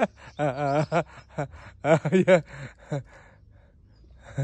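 Short wordless vocal sounds from a person, a few brief hums or sighs with wavering pitch, in two clusters about half a second and two seconds in, then quiet.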